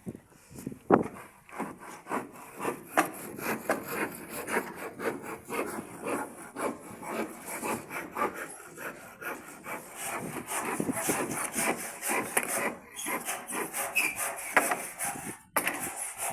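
Hand saw cutting wood in quick, steady back-and-forth strokes, stopping briefly twice near the end.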